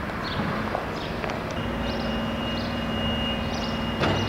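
Outdoor town-street ambience: a steady hum that begins about a second and a half in, with short high chirps and a single sharp click near the end.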